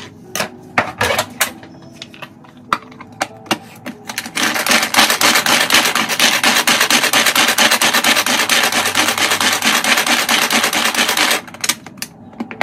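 Plastic hand chopper: a few clicks and knocks as pieces of onion go into the bowl and the lid is snapped on. Then about seven seconds of fast, continuous rattling as the chopper is worked and its blades chop the onion. The rattling stops suddenly near the end.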